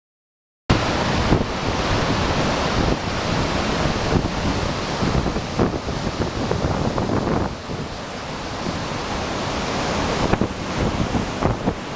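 Wind buffeting the microphone over the steady rushing roar of Gullfoss waterfall, starting abruptly just under a second in.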